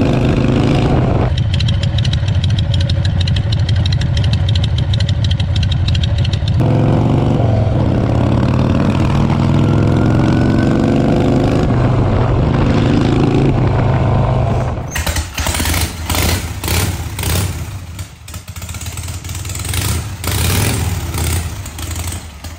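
Harley-Davidson Shovelhead V-twin motorcycle engine under way, heard from the rider's seat, pulling up through the gears with repeated rising runs of engine pitch. About fifteen seconds in, a second Shovelhead's engine is heard, running in uneven bursts of revving.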